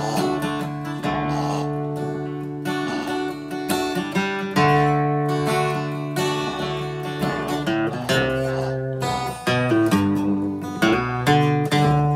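Acoustic guitar played alone, strumming and picking chords that ring out, moving to a new chord every second or two.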